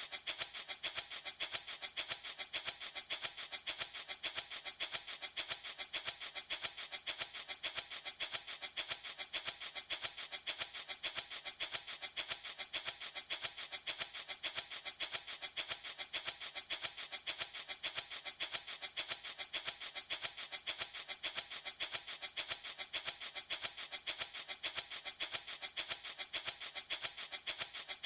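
Handmade wooden baby rattle shaken steadily in a fast, even rhythm, its beads or pellets giving a bright, hissy rattle.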